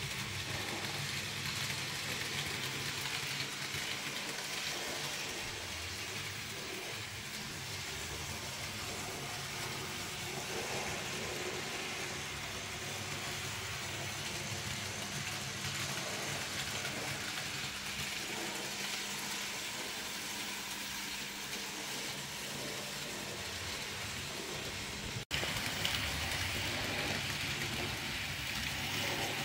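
N gauge model tank locomotive running on its track: a steady motor hum with the rattle of wheels on the rails. The sound breaks off sharply for an instant about 25 seconds in and carries on slightly louder.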